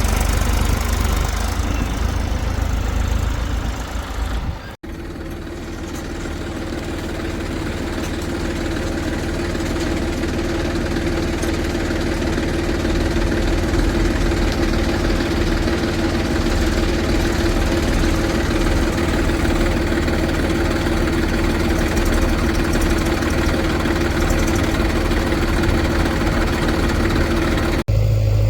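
A heavy machine's diesel engine running steadily. The sound breaks off sharply about five seconds in and again near the end, each time jumping to a different engine sound.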